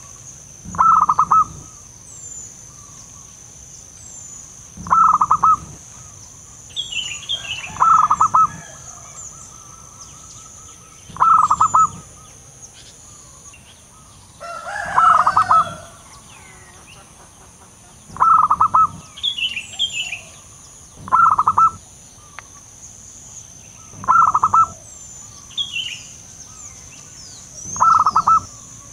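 Zebra dove (perkutut) cooing: a short, quick burst of staccato coo notes, repeated about every three seconds. Higher chirps from small birds come in between, over a steady high insect whine.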